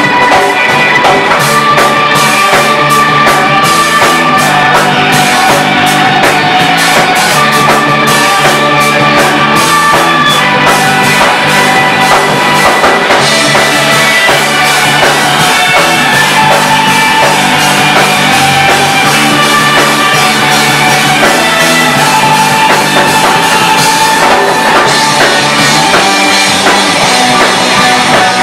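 Live instrumental math rock from two electric guitars, bass guitar and drum kit, loud and continuous. Cymbals are dense for the first dozen seconds, ease off through the middle and come back in near the end.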